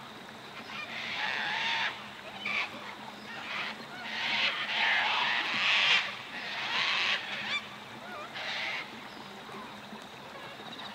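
Harsh bird calls in a series of about six uneven bursts. The longest and loudest comes about four to six seconds in.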